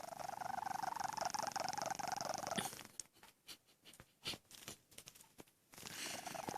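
A sleeping cat snoring: one long snoring breath of about three seconds with a fine, fast pulsing, then a pause of about three seconds with a few faint clicks, and the next snoring breath begins near the end.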